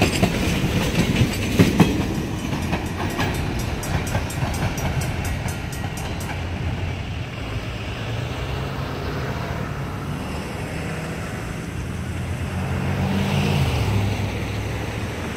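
Tail end of a freight train of covered hopper cars rolling past, its wheels clicking over the rail joints in the first couple of seconds. Then the train's rumble fades as it moves away, with a low drone that swells briefly near the end.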